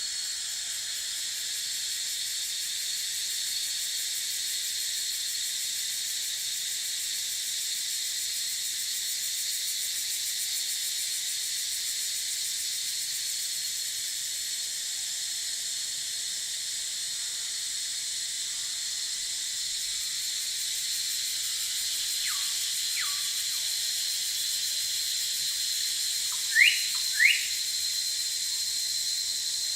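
Steady, high-pitched chorus of insects, such as cicadas or crickets, in forest ambience. In the last few seconds a bird gives several short whistled calls that sweep in pitch; two close together near the end are the loudest sounds.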